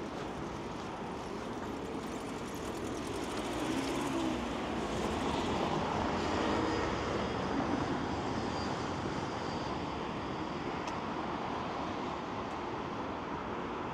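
Steady city street noise, with a passing vehicle growing louder through the middle and then fading.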